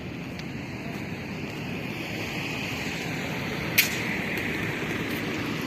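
Steady road noise from a moving car, growing gradually louder, with one sharp click about four seconds in.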